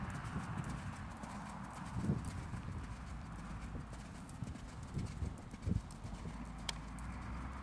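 Hoofbeats of a young Holsteiner–Thoroughbred cross mare cantering under saddle on arena sand: a series of irregular thuds.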